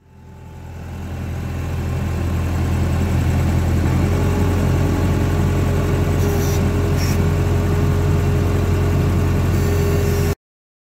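New Holland skid steer engine running steadily, heard from the operator's cab as a loud low drone with a steady higher hum. It swells up over the first second or two and cuts off abruptly near the end.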